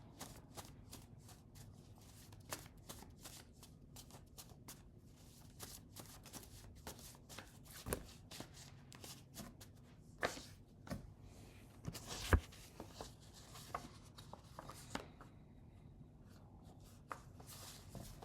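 A deck of reading cards being shuffled by hand: a quick run of soft flicks and slides, with a few sharper clicks scattered through.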